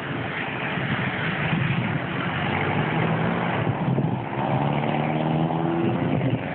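A car engine running over steady rushing noise, its pitch rising slightly over the last two seconds or so.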